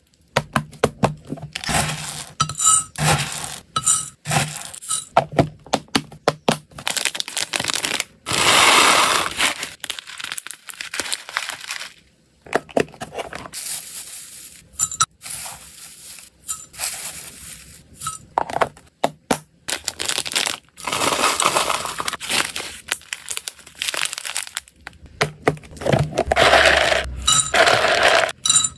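Dry hamster food, a herb-and-flower mix and then pellets, being scooped from plastic tubs with plastic scoops and poured into a glass jug on a kitchen scale. The food clinks and rattles against the glass in many short sharp clicks, with several longer rushing pours of a second or two.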